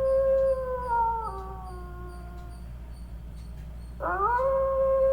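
A canine howling. One long howl, already under way, holds a steady pitch, then falls away in steps and ends about two and a half seconds in. A second howl starts with a quick upward swoop about four seconds in and holds steady.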